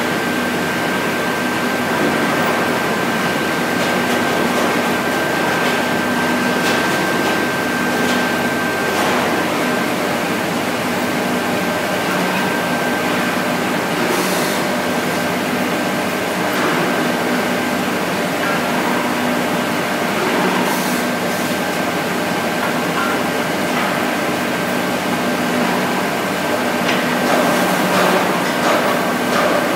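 A REX wood planing machine running steadily with a constant high whine over its hum. A few short knocks come through, loudest near the end.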